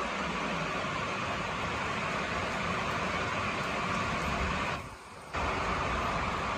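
Steady rainfall, an even hiss that briefly drops away for about half a second around five seconds in.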